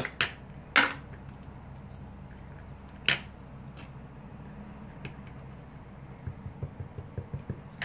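Craft supplies being handled on a table: a few sharp clicks and rustles, the loudest about a second and three seconds in, then a run of light taps near the end, over a low steady hum.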